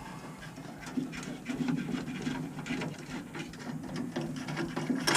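Hands and tools working on the pump fittings inside a combi boiler: irregular clicks, taps and rubbing of metal and plastic parts, with a louder clatter near the end.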